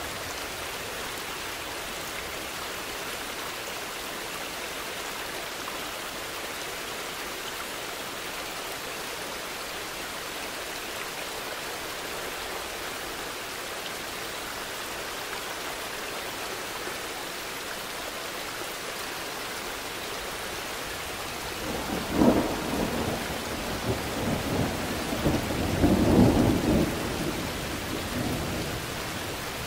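Steady rain falling. About two-thirds of the way in, a sharp thunderclap is followed by several seconds of thunder rumbling, loudest a few seconds after the clap, then fading.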